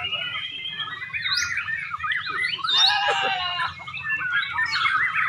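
White-rumped shamas singing, a dense run of quick chirps, trills and rising and falling whistles with overlapping phrases.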